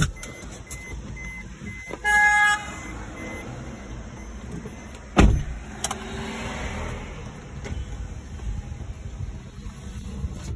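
Heard from inside a Maruti Suzuki Baleno's cabin: a click, a short car-horn toot about two seconds in, and a sharp thump about five seconds in, then the car's steady low engine and road noise as it drives.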